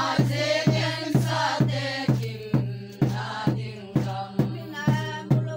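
Group of voices singing together to a deep drum beaten steadily about twice a second.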